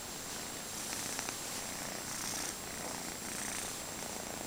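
A kitten purring steadily while drowsing.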